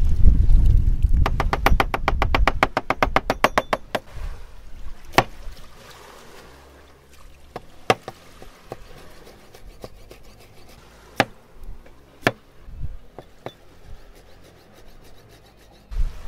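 Large kitchen knife chopping on a plastic cutting board: a fast, even run of chops in the first few seconds, then single cuts every second or few, as bell pepper is sliced. A low rumble at the start.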